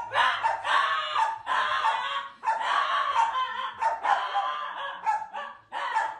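A dog barking and yipping almost without pause, in long strings broken by short gaps.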